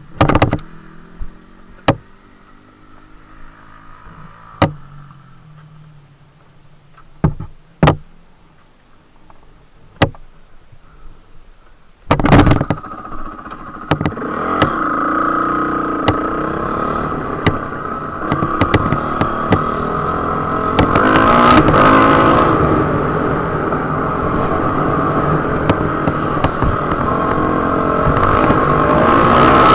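Dirt bike engine running quietly at low revs with several sharp knocks and clicks, then about twelve seconds in a loud knock and the engine runs loud and hard, its revs rising and falling as the bike rides on.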